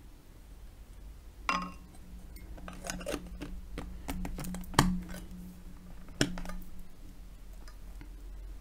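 Wooden spoon stirring a bowl of milk, clicking and knocking against the bowl's sides in a string of irregular taps, with the sharpest knocks about five and six seconds in.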